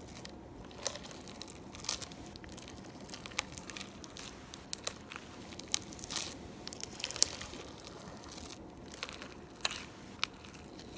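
Yellow slime with foam beads being squished, stretched and lifted by hand, giving irregular small crackles, clicks and squelches.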